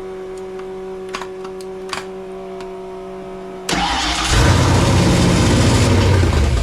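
Carbureted Fox-body Mustang engine firing suddenly a little over halfway through and running loudly for a couple of seconds. It fires but won't hold an idle, which the owner puts down to carburetor trouble, a big vacuum leak or a bad carb.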